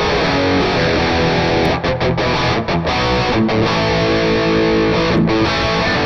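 Donner Hush X electric guitar played through a Mooer Prime P2 multi-effects unit on a distorted REVV-style amp model. The riffs are broken by brief sharp stops, with some notes held.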